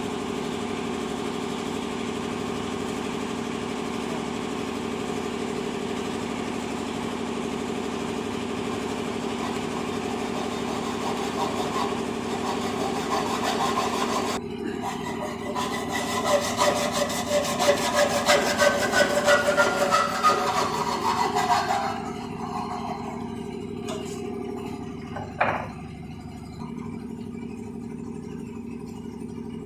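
A steady motor hum, with a rhythmic sawing-like rasp of about two strokes a second for some seven seconds partway through, its tone falling before it stops.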